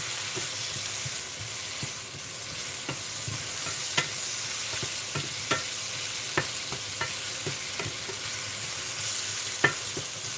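Broccoli and potatoes sizzling in hot oil in a stainless steel pan while a wooden spatula stirs them, with irregular knocks and scrapes of the spatula against the pan; the sharpest knocks come about four seconds in and near the end.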